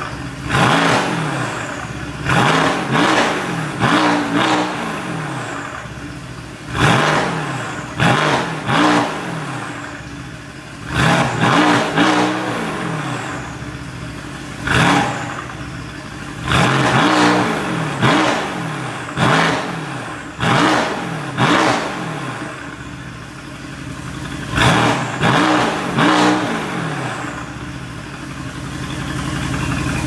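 Mercedes-AMG GT's 4.0-litre twin-turbo V8 revved in quick blips while stationary, through an Fi Exhaust catless downpipe and valved cat-back muffler with the valve open. Each rev rises sharply and falls back toward idle, about fifteen times, often two or three in quick succession.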